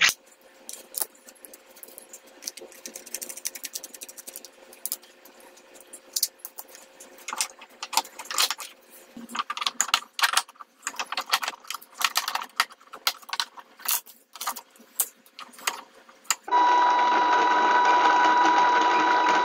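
Parts of a 3D-printed plastic RC tank's running gear are handled and taken apart, giving scattered clicks and knocks. About sixteen seconds in, a much louder steady mechanical noise with a high steady tone starts.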